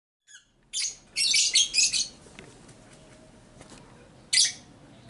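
Birds chirping: a cluster of short, high chirps about a second in, then another brief burst near the end.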